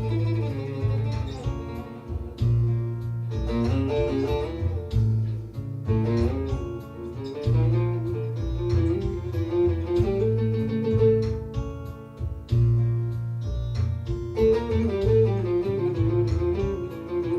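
Bağlama improvising in makam Hicaz: plucked melody notes with quick ornamented runs, over a sustained low bass line that shifts every second or two.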